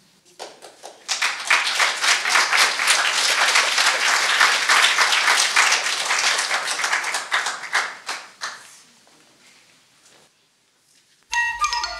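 Audience applauding for about eight seconds, dying away into a short silence. Near the end, mallet-percussion music begins with quick struck notes.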